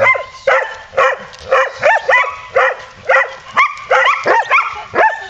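Rough collies barking rapidly and continuously, about three high-pitched barks a second.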